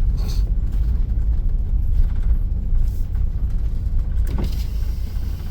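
Engine and road noise of a motorhome heard from inside the cab while driving: a steady low rumble.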